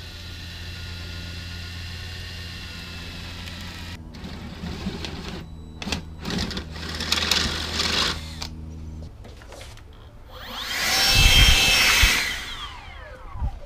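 Small cordless blower whirring in short bursts to clear metal drilling shavings off a car's trunk lid. The longest and loudest burst, about two seconds, comes near the end.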